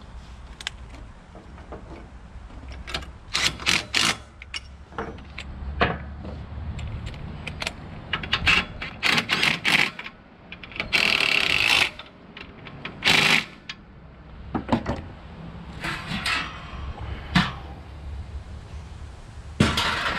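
Metal tools and loose metal parts clinking and knocking in a run of sharp clicks, with a cordless power tool running for about a second near the middle and again briefly just after.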